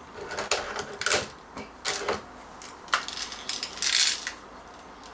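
Scattered light clicks and short rattles of small hard things being handled, with a brief rustle about four seconds in.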